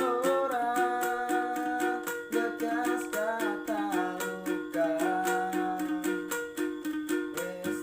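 A busker singing a melody over fast, steady strumming on a small string instrument.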